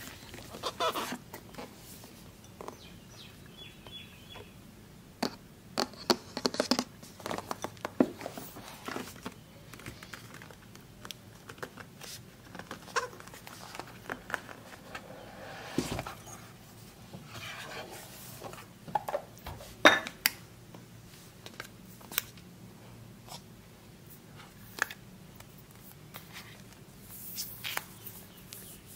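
Close-up handling of an iPad box and tablet: scattered light taps, clicks and rustles of cardboard as the box lid is worked off and the iPad is lifted out. The sharpest click comes about two-thirds of the way through.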